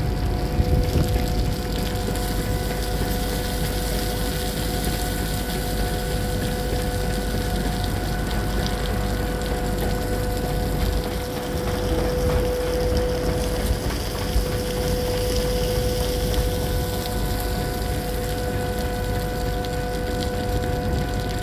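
Telestack TS331 mobile ship loader's machinery running with a steady whine, over a constant rushing noise.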